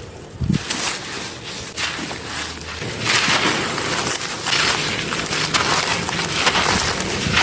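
Brittle crumbly chunks being crushed, a dense crackle of many small cracks and grit that gets louder and busier about three seconds in.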